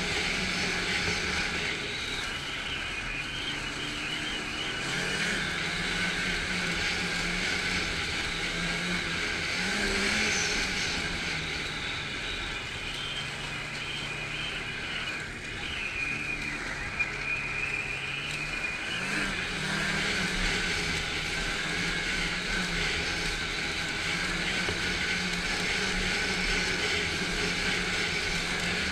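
Snowmobile engine running under way along a snow trail, its pitch rising and falling a few times with the throttle.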